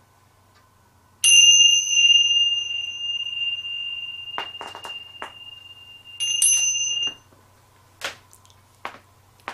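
Tingsha cymbals struck together twice. The first strike rings on as a high, slowly fading tone; the second, about five seconds later, is cut off after about a second. A couple of faint clicks follow near the end.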